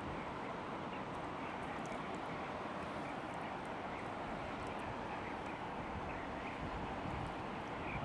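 River water rushing steadily, with faint short high-pitched calls repeating over it.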